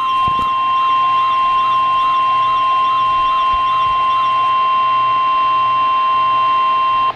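NOAA Weather Radio warning alarm tone: a loud, steady 1050 Hz tone that cuts off suddenly near the end, announcing a new emergency alert. Behind it, a fainter wavering siren-like tone rises and falls about twice a second and fades out about halfway through.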